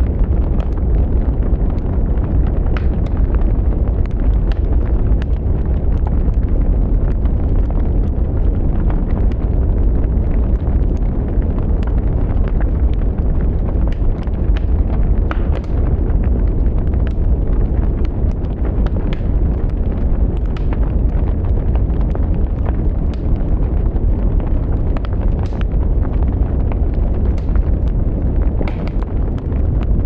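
Wood fire burning: a steady low rumble of flames with frequent sharp crackles and pops from the burning sticks.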